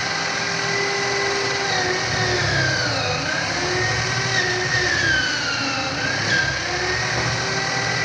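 Electric drill spinning a jeweler's buffing wheel, running steadily with a motor whine whose pitch dips briefly twice, about three seconds in and again around five to six seconds.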